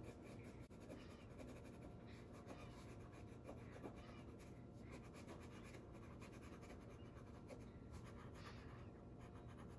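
Faint scratching of a crayon on paper in short, irregular strokes as a leaf is traced and coloured in.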